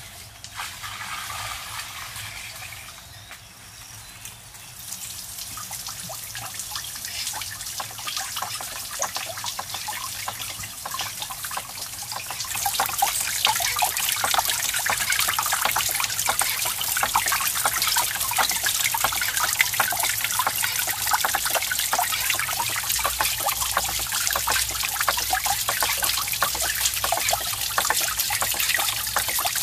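Water pouring from a pipe onto a small wooden waterwheel, splashing and trickling. It starts faint and grows, then gets much louder a little under halfway through.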